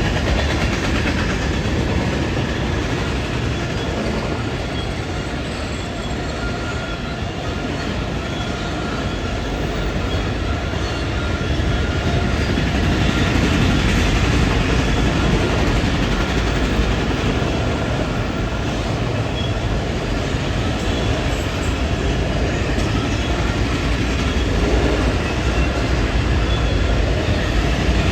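A train running on the track, making a steady, unbroken noise with a few faint high tones over it.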